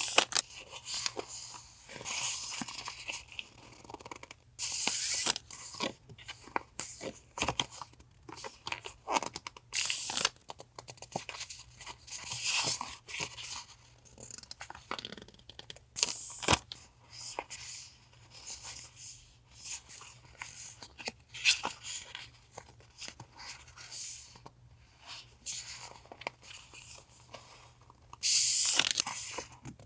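Paper stationery and its packaging being handled and opened: irregular rustling, crinkling and tearing, with small clicks and taps of items being set down, and a longer tearing sound near the end.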